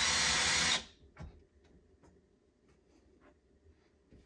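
Cordless drill running in one short burst of under a second at the start, boring a pilot hole for a bracket screw. A few faint clicks and knocks follow.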